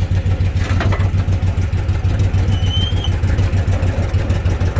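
An engine idling steadily with a low, even rumble. There is a short clatter about a second in and a brief high squeak around the middle.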